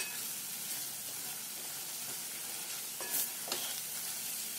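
Masala paste with roasted gram flour sizzling in hot oil in a kadai while it is stirred with a wooden spatula, with a couple of short scrapes of the spatula on the pan a little past halfway. The paste is being roasted until the oil separates.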